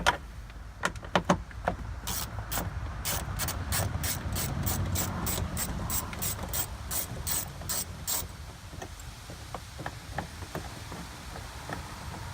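Socket ratchet clicking as it backs out the 7mm door-panel bolt, about three clicks a second for some six seconds, stopping about eight seconds in.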